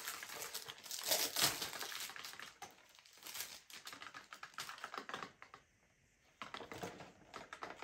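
Gift-wrap paper rustling and crackling in quick irregular clicks as a wrapped box is cut open with scissors, with about a second of quiet a little after the middle.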